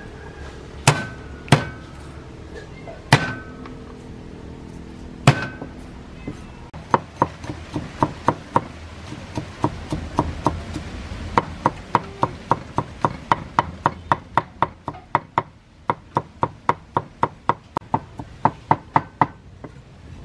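Steel cleaver chopping garlic on a thick wooden chopping board: four single heavy strikes with a brief ring of the blade, then steady mincing at about three strokes a second, with a short break about two-thirds of the way through.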